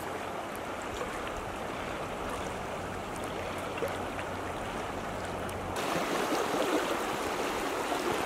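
Fast, shallow mountain river rushing steadily over riffles; the rush gets louder and brighter about six seconds in.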